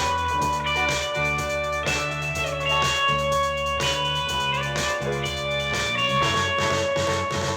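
Music with guitar and drums played back through a portable Bluetooth speaker and picked up by a microphone.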